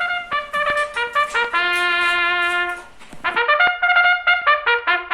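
Background music: a lively melody of quick short notes, with one long held note a little before the middle, then another quick run.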